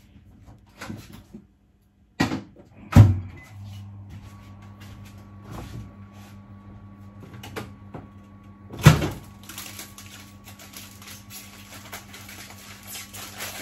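Microwave oven door knocking open and clunking shut, then the oven running with a steady low hum. A louder knock comes later, near the end.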